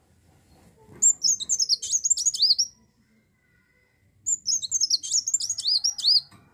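Kolibri wulung, a sunbird, singing two rapid, high twittering song phrases about a second and a half apart. Each phrase ends in a few down-slurred notes. This is the lively 'gacor' song used to lure or tutor other birds.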